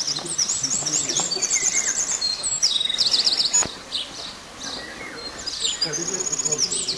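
Songbirds singing: high-pitched chirps and fast trills, repeated phrase after phrase, with a single sharp click about halfway through.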